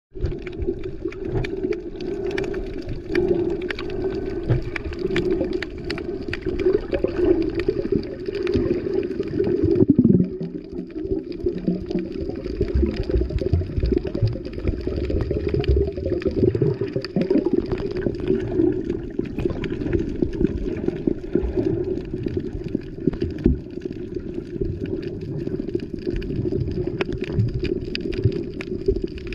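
Water noise heard underwater: a steady, muffled low rush of water with many small clicks and crackles.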